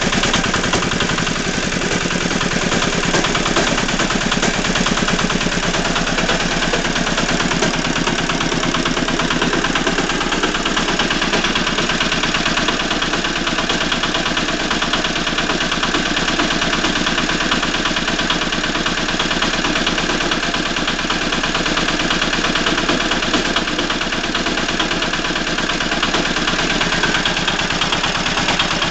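Walk-behind tractor engine running steadily at a constant speed, with a rapid, even percussive beat: a knock in the engine.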